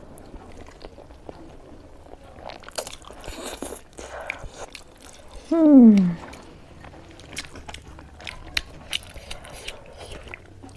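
Close-up eating of instant noodles: chewing and slurping with many small wet clicks. A short hum, falling in pitch, comes a little past halfway and is the loudest sound.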